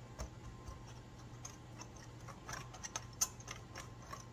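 Wire whisk stirring a dry flour mix in a mixing bowl, its wires ticking irregularly against the bowl's sides, with one sharper tick about three seconds in.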